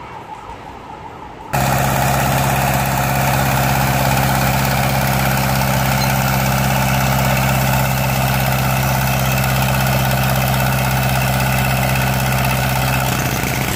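Towable air compressor's engine running steadily at a constant speed, a loud, even hum that comes in suddenly about a second and a half in and stops just before the end. Quieter street background comes before it.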